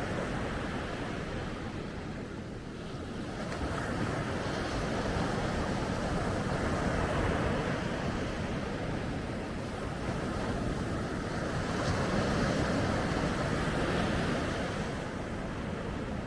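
Ocean waves breaking and washing on a beach, swelling and ebbing every few seconds, with some wind noise on the microphone.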